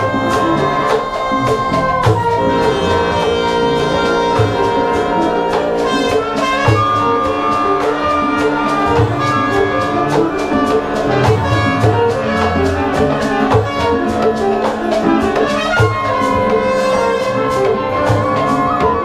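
A large mixed ensemble playing live: held wind, brass and string lines, with a flute or fue lead, over a steady pattern of batá drum strokes.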